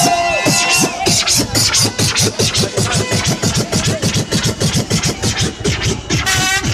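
Loud electronic dance music with a fast, steady drum beat and sharp high hits.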